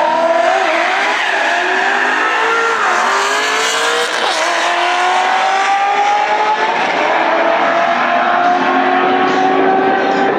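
A BMW SUV and a Chevrolet Corvette accelerating hard down a drag strip from a standing start. Their engines rev up through the gears, the pitch climbing and dropping back at each shift, with several engine tones overlapping.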